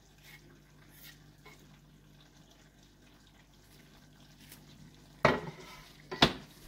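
Curry simmering faintly in a pan on the stove over a steady low hum, with a few tiny ticks as coriander leaves are sprinkled in. Near the end come two sharp knocks about a second apart.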